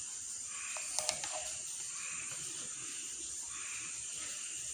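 Crickets chirping in soft, evenly repeating pulses over a steady high hiss, with a couple of light clicks about a second in.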